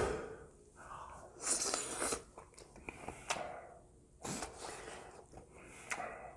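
Close-miked eating of a spoonful of gopchang-fat fried rice: a sharp mouth sound as the spoonful goes in, then irregular chewing and breathing noises.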